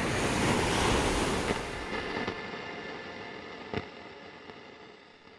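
An ocean wave crashing and washing out: a rushing noise that swells in the first second and then slowly fades away. A sharp click sounds a little past the middle.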